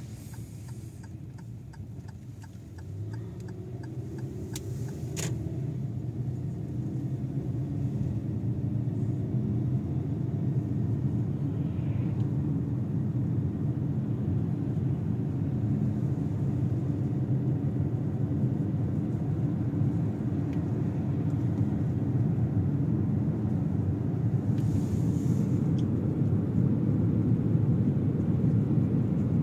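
Steady low rumble of a car's engine and tyres heard inside the cabin while driving, growing louder over the first several seconds as the car picks up speed, then holding steady. A couple of sharp clicks about five seconds in.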